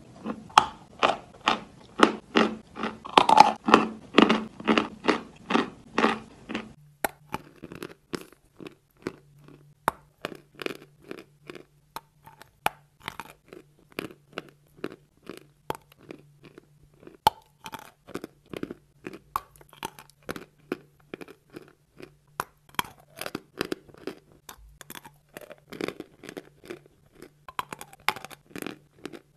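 Close-miked chewing of chalk: rapid, regular crunches about two to three a second, louder for the first seven seconds. After that the crunches are quieter, with a steady low hum under them.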